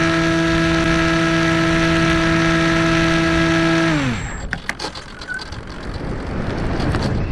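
Easystar 2's electric motor and pusher propeller running with a steady whine, then spinning down with a quickly falling pitch about four seconds in as the throttle is cut. After that comes airflow hiss with a few clicks as the plane glides.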